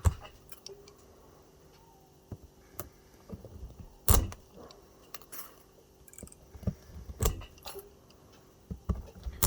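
Scattered sharp metallic clicks and clinks as pliers work on an e-bike battery pack and its cells are handled, the loudest knock about four seconds in.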